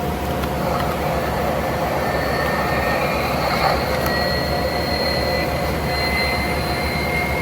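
Electronic starfighter-engine sound effect from the 1997 Power of the Force X-Wing toy's small speaker: a steady rushing engine noise with a thin high whine over it.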